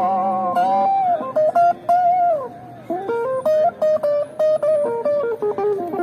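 Guitar music: a single-note melody played on a guitar. A long wavering note is followed by a downward slide, a brief dip in level, then a run of quick stepped notes.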